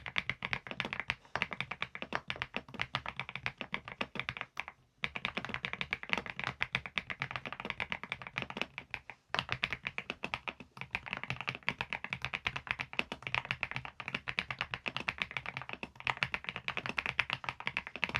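Fast, continuous typing on a Preflow AK74 PRO full-size mechanical keyboard, a steady stream of key clicks, with short pauses about five and nine seconds in.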